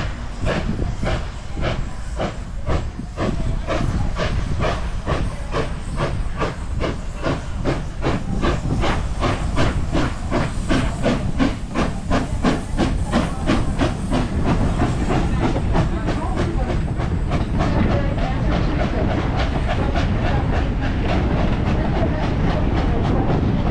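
Detroit and Lima Northern No. 7, an 1897 Baldwin 4-4-0 steam locomotive, working under steam with rapid, evenly spaced exhaust chuffs over a steady rumble. After about eighteen seconds the beats blur into a more continuous hiss.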